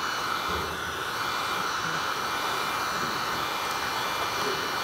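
Handheld heat gun running, its fan blowing hot air onto vinyl wrap film as a steady blowing hiss.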